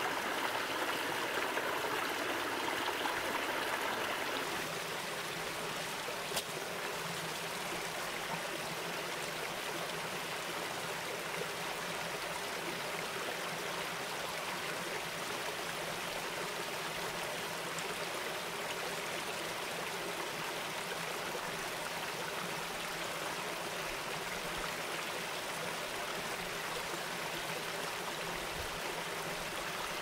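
Shallow rocky forest stream trickling and splashing over stones in a small cascade, a steady rush of running water that drops a little in level about four seconds in. One short click sounds about six seconds in.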